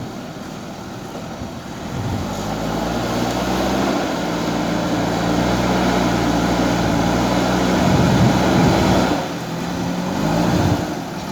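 JCB backhoe loader's diesel engine running, revving up under hydraulic load about two seconds in and working hard. It eases off briefly near the end, then picks up again.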